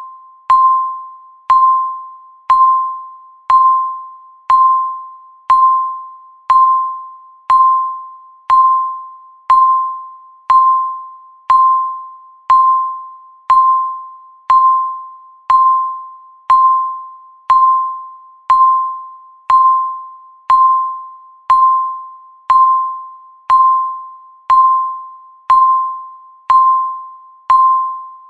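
Countdown timer beeping once a second, each beep marking one second counted off. Each beep is a single mid-pitched electronic tone that starts sharply and fades away before the next.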